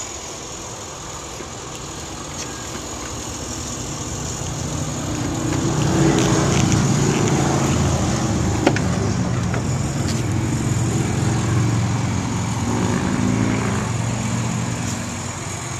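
A motor vehicle engine running, growing louder from about four seconds in, staying loud through the middle and easing off near the end. About halfway through comes a single sharp click, the truck's door latch opening.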